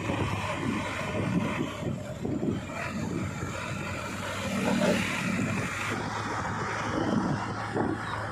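Heavy diesel machinery engine running steadily under work, with uneven low rumbling surges over the steady drone.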